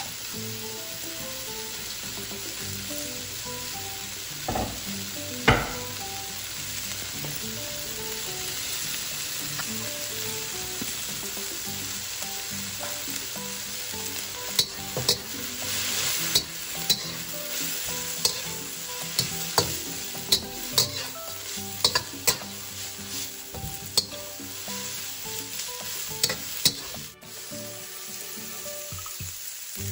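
Julienned onion, ginger, carrot and red bell pepper sizzling in oil in a wok while a metal spatula stirs and tosses them. There is one loud knock about five seconds in, and in the second half many sharp clicks of the spatula against the wok.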